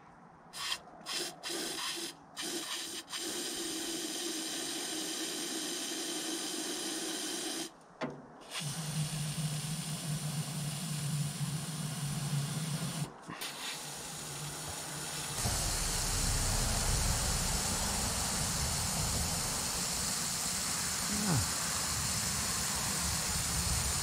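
Aerosol can of engine storage fogging spray hissing as it is sprayed down into an engine's open spark plug holes to coat the cylinders for storage. A few short bursts, then long sprays broken by two brief pauses, louder in the last third.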